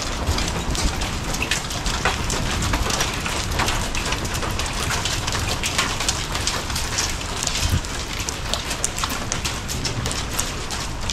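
Hailstones pelting the garage roof and vans, a dense patter of sharp ticks over the steady hiss of falling rain and hail.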